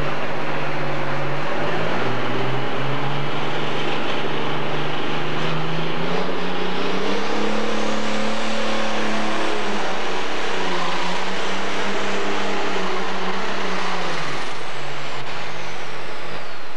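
Pro stock pulling tractor's turbocharged diesel engine revving up hard on the pull, black smoke pouring from the stack, holding high revs, then dropping back. A high whine falls in pitch near the end.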